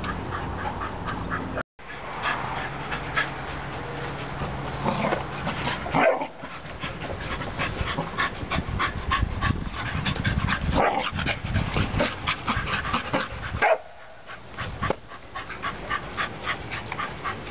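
A Standard Schnauzer, a black Lab and a bull terrier play-fighting, with rapid short yips and several whining cries.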